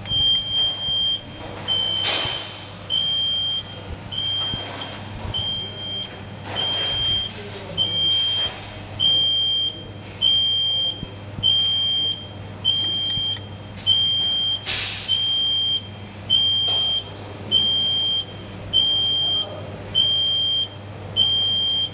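High-voltage test set's warning buzzer beeping about once a second, each beep a short high steady tone, signalling that high voltage is switched on at the output. A low steady hum runs underneath.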